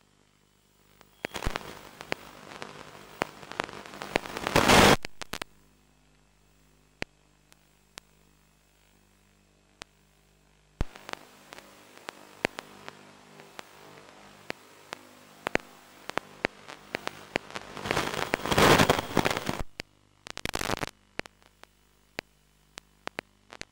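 Crackling radio static and hiss on an FPV video link's audio, with scattered clicks over a steady low hum, swelling twice into loud bursts of noise, about five seconds in and again near nineteen seconds.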